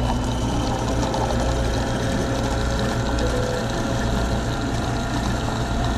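Steady mechanical hum of a running machine: a constant low drone with several steady higher tones over it.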